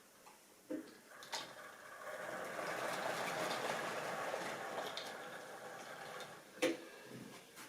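Model railway train running past on the track: a rolling rattle of wheels on rails that swells and then fades over a few seconds, with a few sharp clicks just before and just after it.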